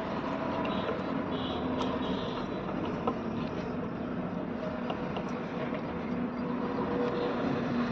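Steady background rumble with a faint hum. A few faint clicks come from the plastic wiring connectors being handled.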